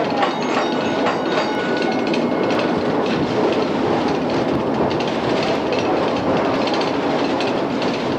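Vintage electric streetcar running along its track, heard from inside the wooden car: a steady rumble and clatter of wheels on rails.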